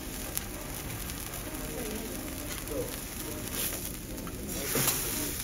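Vegetables sizzling and crackling on a hot steel teppanyaki griddle, with a louder scrape of a metal spatula across the steel plate near the end as a slice of onion is lifted and turned.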